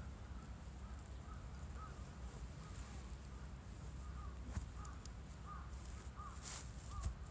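Faint outdoor ambience: a bird calling again and again in short notes over a steady low rumble, with a few soft clicks and rustles of cloth as trouser legs are pulled down over rubber boots in the second half.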